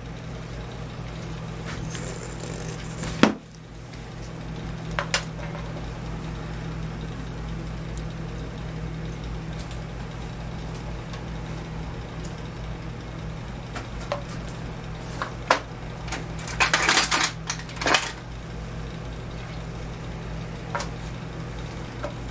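Metal tools and parts clinking and clattering on a workbench as they are handled: single sharp clicks every few seconds and a short run of clatter a little past the middle. Under them runs a steady low hum.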